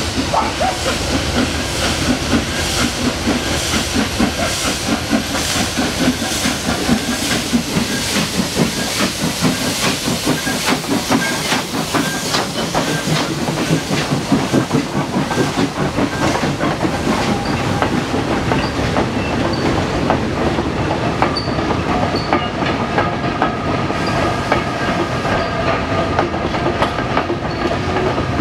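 Two Sri Lanka Railways steam locomotives, B1D 340 and B2B 213, working hard uphill as they pass, with rapid exhaust beats and hissing steam. The wagons follow, rolling by with clickety-clack over the rail joints. In the second half a steady diesel engine hum comes in as the banking diesel locomotive at the rear of the train approaches.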